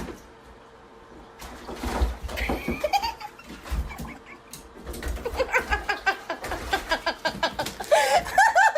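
People laughing in quick repeated bursts, growing louder over the last few seconds.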